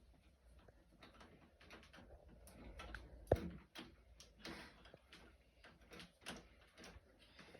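Faint clicks, taps and rattles of metal door-lock hardware being handled while the lock is taken off a door, with one sharper knock about three seconds in.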